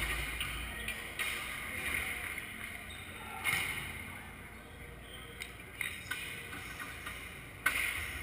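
A volleyball being struck by hands several times during a rally in a large hangar hall, short sharp hits about two seconds apart over a steady low hum, the sharpest one near the end.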